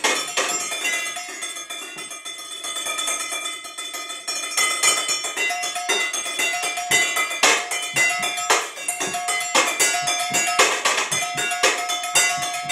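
Butter knives drumming a rhythm on kitchen pots, pans and bowls: a quick, dense stream of clanking strikes, the struck metal ringing on in clear steady tones between hits.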